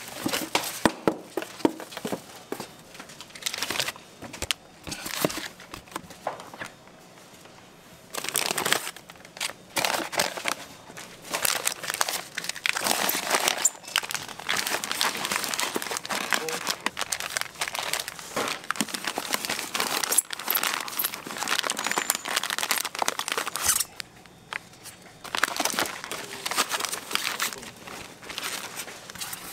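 Plastic packaging crinkling and rustling as it is handled, in irregular bursts with many small clicks, busiest through the middle with a short lull near the end.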